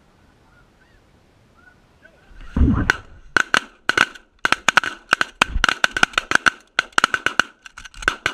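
Goose honking: a few faint honks, then a loud low thump about two and a half seconds in, followed by a fast, loud run of short honks and clucks, several a second, to the end.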